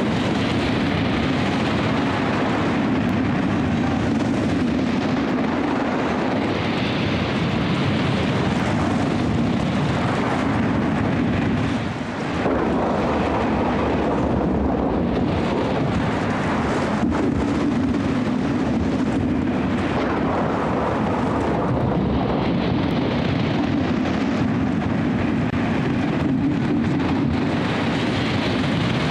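Storm wind and heavy surf: a steady, loud rushing roar, with a brief dip about twelve seconds in.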